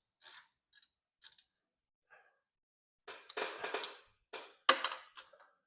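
Hand tools clicking and clanking against metal while the hydraulic housing plug on a tractor is worked loose: a few scattered light clicks, then a denser run of clicks and scrapes from about three seconds in.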